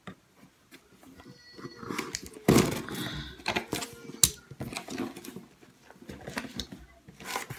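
Fussing and whimpering in the background, mixed with a few sharp clicks and knocks from handling a cardboard box.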